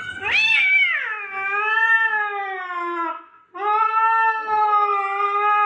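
A cat yowling in two long, drawn-out calls. The first rises sharply, then falls and is held; after a brief pause, the second is held steady.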